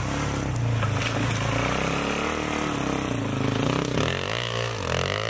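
Dirt bike engine revving and labouring as the rider climbs a rutted bank over logs, the revs rising in quick sweeps near the end.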